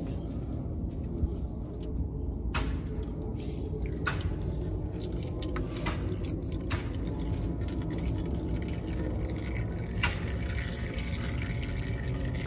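Engine oil dripping and trickling from a loosened oil filter into a drain pan, with a few short sharp ticks scattered through.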